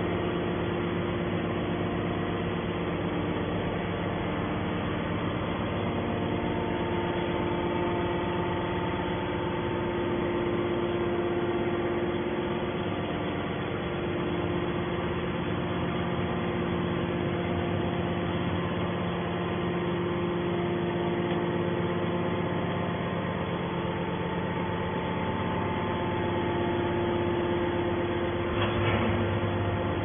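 Hydraulic scrap metal baler's power unit running: a steady machine hum with several held tones.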